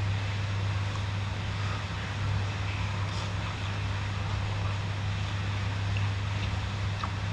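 Heavy rain hissing steadily, with a steady low hum underneath and a few faint slurps of noodles being eaten.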